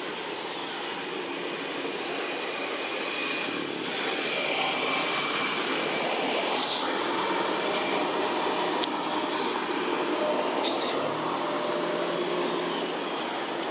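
Steady rushing outdoor background noise with faint thin tones, and short high hisses about seven and eleven seconds in.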